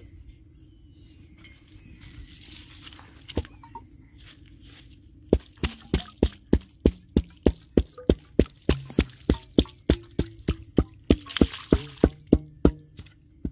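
Hand boring of a well for a hand pump: the steel boring pipe is worked up and down in the wet, muddy borehole. About five seconds in, a run of sharp, regular knocks starts at about four a second and stops just before the end.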